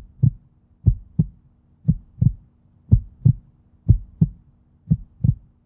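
Heartbeat sound effect: a low double thump, lub-dub, repeating about once a second.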